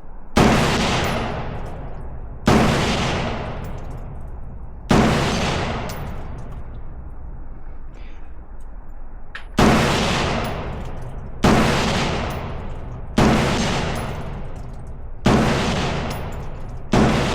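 Eight single gunshots fired at irregular intervals of about two to five seconds, each with a long echoing decay.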